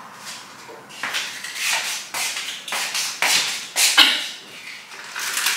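Kitchen handling noises at a counter: irregular rustling and scraping, with a sharp knock about four seconds in.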